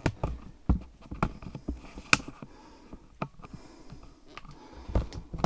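Scattered light knocks and clicks at irregular intervals, the sharpest about two seconds in: footsteps and handling noise of a person moving slowly at a doorway in a debris-littered abandoned room.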